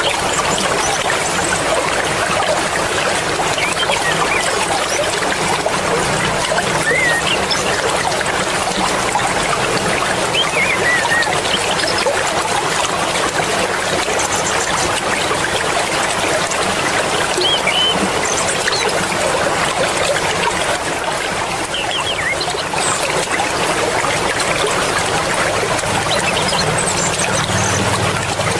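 Fast-flowing mountain river water rushing and splashing steadily, with a few faint short high chirps over it now and then.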